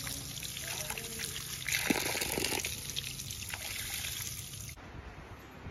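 Water running from an outdoor wall tap and splashing onto a bare foot and the concrete below, loudest for about a second around two seconds in. The splashing drops away suddenly near the end.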